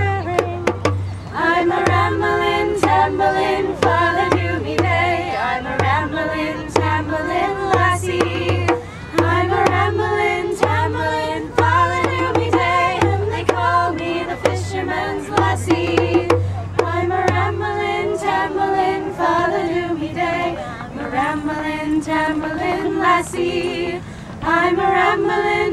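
Group of mostly women's voices singing a folk song together, accompanied by a hand drum beating a steady rhythm that stops about two-thirds of the way through.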